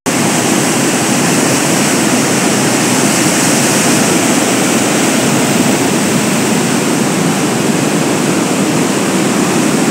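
Muddy flash-flood water rushing down a rocky riverbed: a loud, steady roar with no let-up.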